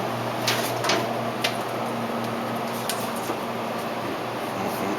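Several light clicks and knocks from the inside panel and product of a soda vending machine being handled, over a steady low hum.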